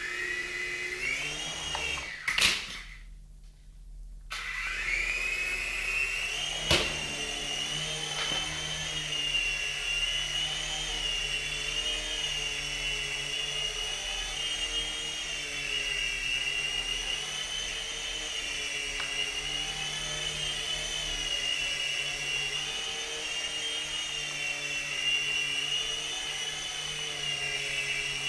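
DFD Firewolf F103 micro RC helicopter's electric motors whining as the rotors spin up. About two seconds in there is a loud knock and the motors stop briefly, then they spin up again and run steadily with a wavering pitch, with a sharp knock near seven seconds.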